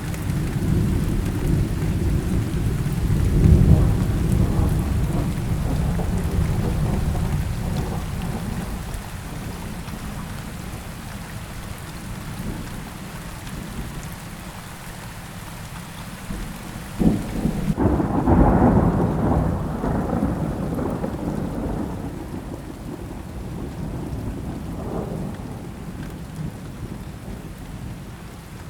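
Thunderstorm with steady rain and rolling thunder: a long low rumble in the first several seconds, then a sharp crack about seventeen seconds in followed by a loud rumble, and a fainter roll near the end.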